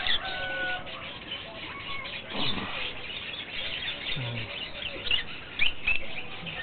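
Lovebirds chirping in many short, quick, high calls, with a brief rustle about two and a half seconds in.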